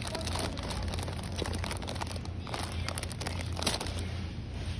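Supermarket background sound: a steady low hum with scattered faint crackles and rustles.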